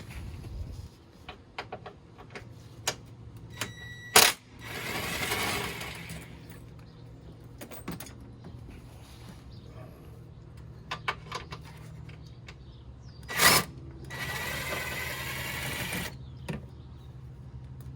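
Ryobi impact wrench running twice, each time for about two seconds, about four and about thirteen seconds in, as it backs out the 10 mm bolts holding the under tray. Each run starts with a sharp loud burst. Small metal clicks and clinks of bolts and tools come in between.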